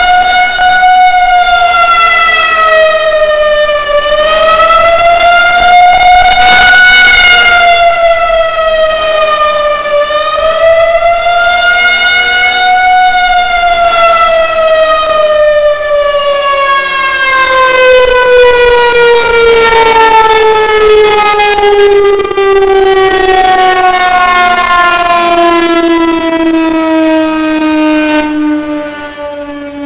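Federal Signal 2001 electromechanical outdoor warning siren sounding a wail, its pitch rising and falling about every six seconds. About halfway through it winds down in one long falling tone that fades near the end.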